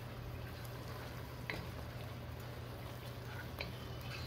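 Thick onion-tomato gravy simmering in a pot: a few faint, scattered pops over a low steady hum.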